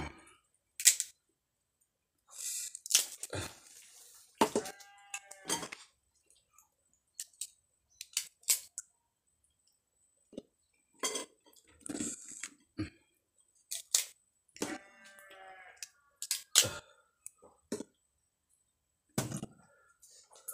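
Mouth sounds of eating raw young jengkol: a string of sharp, irregular cracks and clicks as the firm beans are bitten, peeled and chewed. Two short voiced sounds from the eater come in between, about a third of the way in and again past the middle.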